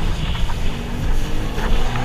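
Jet ski engine running under way, with wind buffeting the microphone and a couple of sharp slaps as the hull hits the waves.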